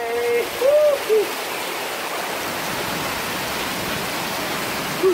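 Heavy rain pouring down, a steady even hiss of rain falling on the street. During the first second or so a man's voice makes a few short sliding sounds over it.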